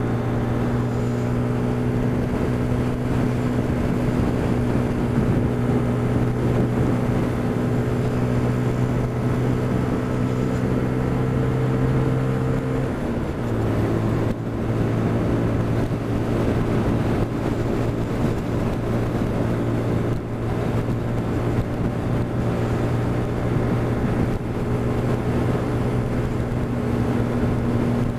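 Motorcycle engine at a steady cruise, heard from the rider's seat with wind rushing over the microphone. Its note climbs slowly, dips about halfway through, then holds steady.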